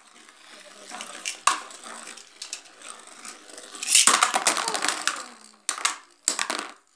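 Beyblade Burst spinning tops whirring and scraping around a plastic basin, with a sharp knock about a second and a half in. About four seconds in comes a loud clatter as a top bursts apart, its metal and plastic pieces rattling against the basin, then a few short knocks as the parts settle.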